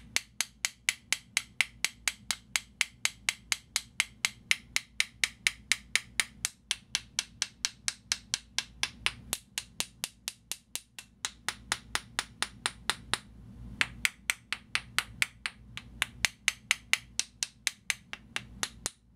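A wooden dowel taps rapidly on a modified Sony PS-X800 Biotracer tonearm housing, about four taps a second. The housing is clad in carbon fibre, and this is an impulse test of how the housing rings. Each tap is short and bright, with a brief break about two-thirds of the way through.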